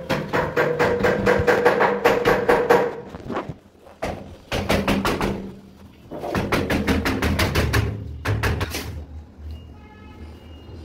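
Background music with a fast, even percussive beat over a held tone, in stretches of a few seconds with short breaks between them.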